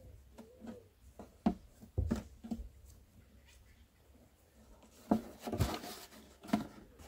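Handling noise of cord being knotted around a large plastic water bottle: scattered clicks and crinkles of the plastic, with a short rustling burst of cord a little over five seconds in. A short call from an animal is heard about half a second in.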